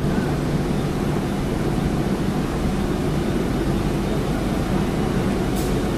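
Steady low rumble of locomotives at close range: a GE WDG6G diesel locomotive's engine running while an electric locomotive rolls slowly past in front of it.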